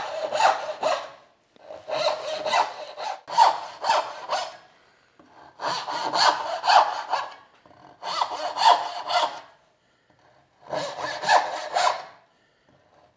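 Brass-backed dovetail backsaw cutting into a wooden board clamped upright in a Moxon vise, in about five short runs of quick, rasping strokes with brief pauses between them.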